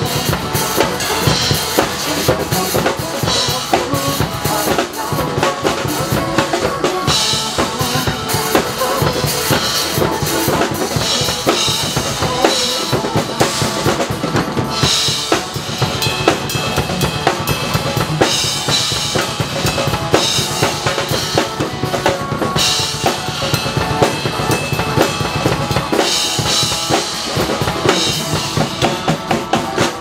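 Two drum kits played together live over a recorded backing song: a busy kick-and-snare beat with cymbal crashes every few seconds.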